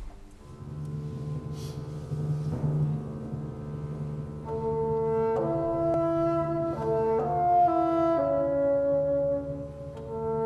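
Chamber orchestra playing the slow opening of a piece: a low sustained rumble comes in about half a second in, and from about four and a half seconds a slow melody of long held notes rises above it.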